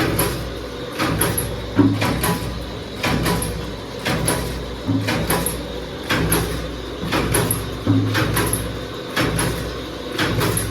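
Fully automatic paper dona (paper bowl) making machine running: a steady low motor hum with a pressing cycle that repeats about every three seconds, each stroke a sharp clunk followed by lighter clicks and a short hiss.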